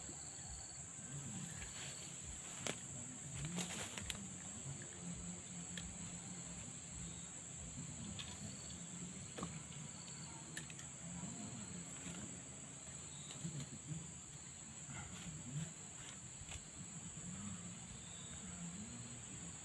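Steady high-pitched drone of insects, with a few faint clicks and knocks here and there.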